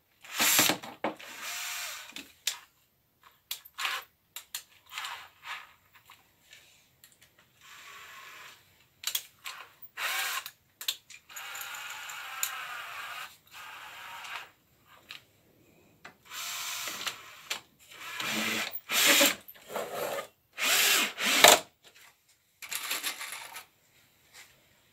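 Makita cordless drill-driver driving small wood screws into softwood, run in about seven short bursts with the motor speeding up and slowing down. Small clicks and knocks of handling fall in the pauses.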